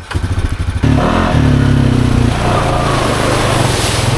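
Honda Foreman ATV's single-cylinder four-stroke engine running. It gets much louder about a second in, then revs with its pitch rising and falling.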